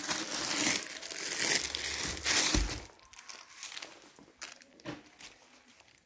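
Clear plastic sleeve around a new cricket bat crinkling as the bat is handled. The crinkling is strongest for the first three seconds, then thins to a few faint rustles.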